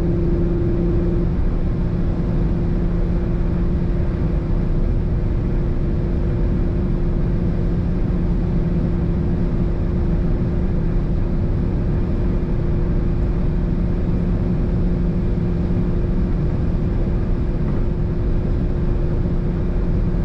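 Inside the cabin, the CUPRA Leon Sportstourer e-Hybrid's 1.4-litre TSI four-cylinder petrol engine runs at a steady high pitch at full throttle near its top speed, around 215 to 223 km/h. A dense rumble of wind and road noise lies under the engine tone.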